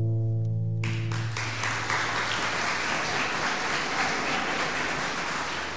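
The last strummed acoustic-guitar chord of a song rings out, and about a second in an audience breaks into applause that goes on steadily.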